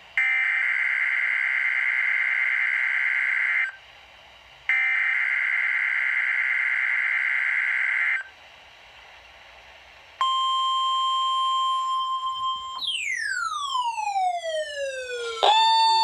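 NOAA Weather Radio test signals: two long SAME digital header bursts, each lasting about three and a half seconds, then the steady 1050 Hz warning alarm tone for a couple of seconds. The alarm tone then slides steeply down in pitch with a trail of overtones, and a new steady, harsh two-tone alert starts near the end.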